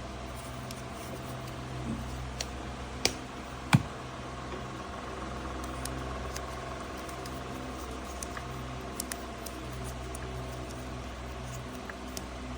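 Scattered light clicks and taps from hands handling wiring, with two sharper clicks about three and nearly four seconds in, over a steady low hum.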